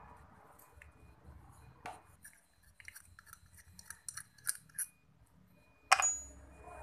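Scattered small metallic clicks and taps as a Yamaha Mio's carburetor is handled and taken apart, with one sharper knock near the end.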